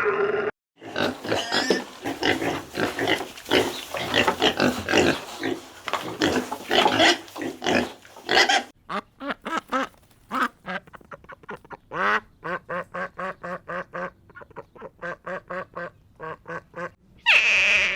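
Farm animals calling. A stretch of dense, rough calls is followed by a run of short, evenly spaced calls about three a second, and a loud, higher-pitched call comes near the end.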